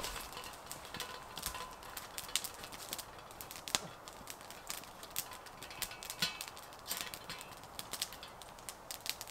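Small wood campfire crackling and snapping in short, sharp, irregular pops, with footsteps on dry forest litter in the first second or so.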